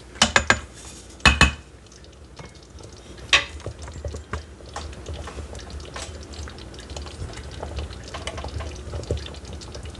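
A wooden spoon knocks against the stainless steel Instant Pot insert a few times in the first second and a half. Then thick chicken-and-dumpling broth simmers on the sauté setting, bubbling with many small pops.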